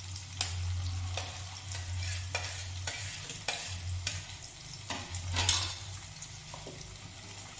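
Potato pieces frying in oil in a steel kadai, a steady sizzle, with scattered light clicks and taps as chopped tomato is tipped from a plate into a steel jar.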